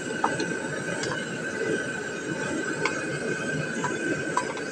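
Chicken pieces sizzling in oil in a wok, with a wooden spatula knocking and scraping against the pan several times as they are stirred.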